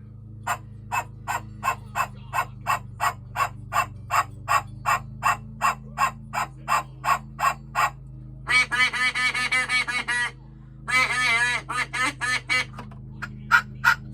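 Duck quacking sound effect: short quacks repeated evenly about three times a second, then two longer bursts of rapid quacking about eight and a half and eleven seconds in, over a low steady hum.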